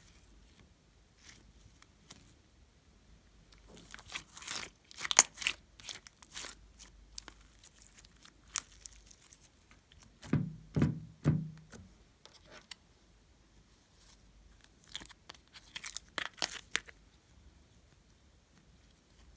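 Glossy slime being squeezed, stretched and folded by hand, with sticky crackles and clicks. They come in three bursts, and the middle burst has a few low squelches.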